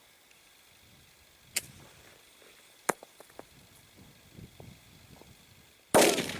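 Two sharp clicks a second or so apart, then near the end a sudden loud bang as a homemade airsoft grenade goes off.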